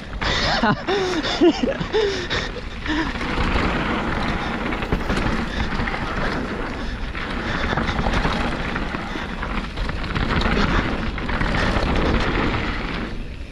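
Wind rushing over the microphone and the steady rumble and rattle of a mountain bike riding fast down a dirt trail. A few short vocal sounds from the rider come in the first few seconds.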